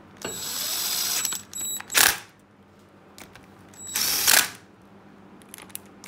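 Cordless drill with a socket extension running bolts down into a transmission case in short runs: one of about a second near the start, a brief burst about two seconds in, and another about four seconds in, the motor whining high as it spins.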